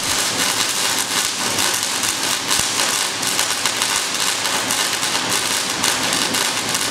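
Flash butt welding machine flashing as it joins steel rods end to end: a dense, steady crackling sputter of arcing and spitting sparks.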